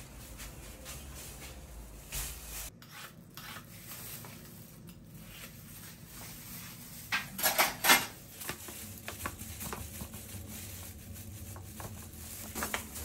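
Handling noise: rubbing and scattered light knocks, with a quick run of several louder knocks about seven to eight seconds in.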